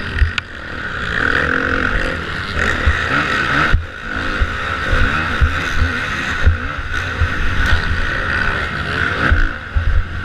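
Kawasaki motocross bike's engine, heard close up from on board, revving up and down as it is ridden hard over a dirt track, with frequent low thumps and a short dip in engine noise a little under four seconds in.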